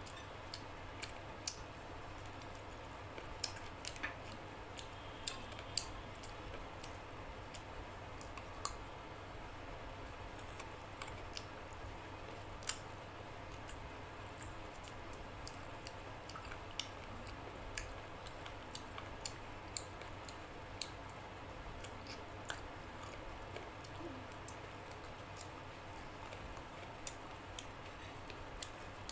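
Close-miked eating with the hands: irregular sharp clicks and smacks from chewing and from fingers at the mouth and in the food, over a steady low hum.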